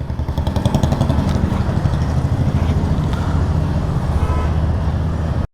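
Motorcycle engine running steadily, with a rapid even beat, cut off suddenly near the end.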